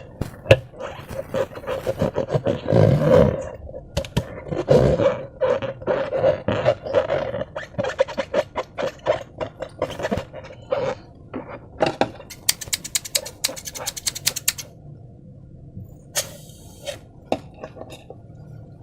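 Slime and a rubber balloon being squeezed and worked by hand: dense wet clicks and crackles with a groaning squeak for the first ten seconds or so. A fast run of fine clicks follows, then sparser clicks toward the end.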